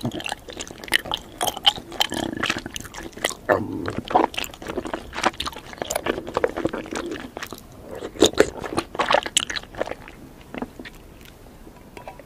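Close-miked chewing of tapioca pearls: a steady run of wet mouth clicks and smacks, quieter over the last couple of seconds.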